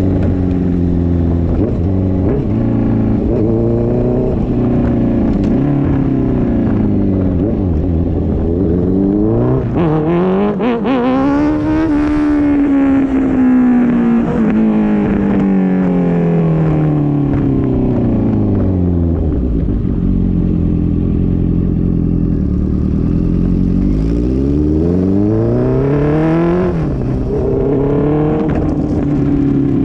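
Honda CB650F inline-four engine through a straight-through Mivv MK3 full exhaust without a catalytic converter, running with a few short throttle blips, then revving up and winding slowly back down. Near the end it revs up again and drops off suddenly.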